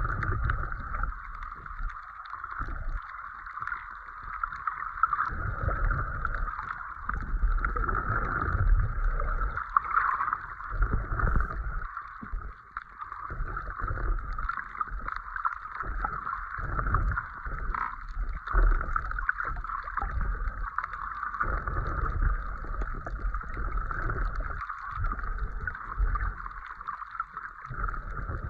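Muffled underwater noise as a snorkeler swims: irregular low water rumbles and surges over a steady mid-pitched hiss.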